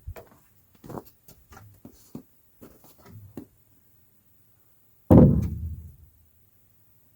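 Wooden planks being handled: a few light knocks, then one loud thud about five seconds in that dies away over most of a second.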